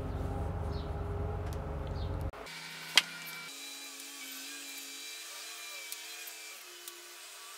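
An engine running steadily with a low rumble, cutting off abruptly a little over two seconds in. A single sharp click follows about a second later, then only faint small ticks.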